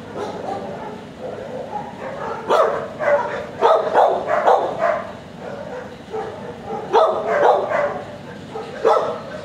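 Dogs barking in short clusters: a run of barks from about two and a half to five seconds in, another around seven seconds, and a last burst near the end.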